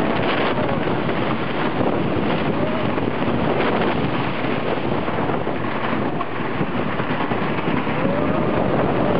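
Lightning Racer wooden roller coaster heard from a car in motion: a steady rush of wind on the microphone over the rumble of the train on its wooden track.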